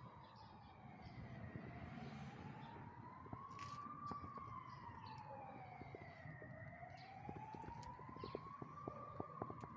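A faint siren wailing, its pitch rising and falling slowly, about one full rise and fall every five seconds, with scattered light clicks.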